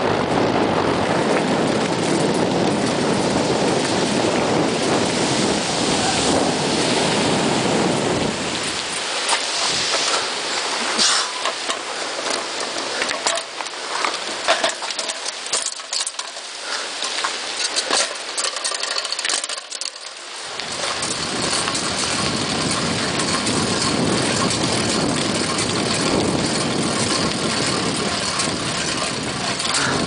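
Bicycle rolling fast down a gravel trail: a steady rumble of wind on the microphone and tyres on gravel. For about ten seconds in the middle the rumble drops away, leaving scattered clicks and rattles from the bike, before the steady rumble returns.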